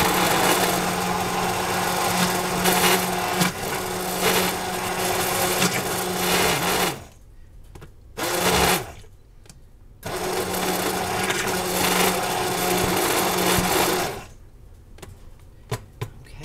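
Electric immersion (stick) blender running in a thick avocado-yogurt dressing, with a steady motor hum: a run of about seven seconds, a short half-second pulse, then another run of about four seconds that stops near the end, followed by a few light clicks.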